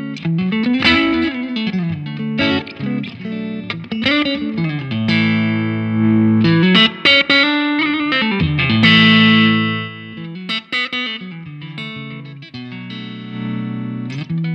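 Electric guitar played through a Laney Lionheart Foundry combo amp on its clean channel with the boost engaged and the volume turned down. It plays a phrase with string bends and ringing held notes.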